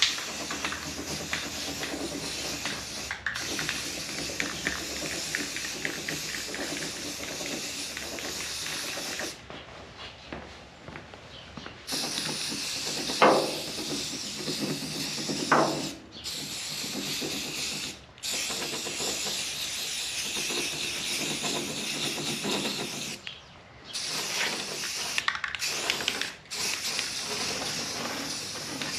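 Aerosol can of rust-preventive spray paint hissing in long bursts broken by short pauses, the longest pause about nine seconds in. Two brief louder sounds come a little after the middle.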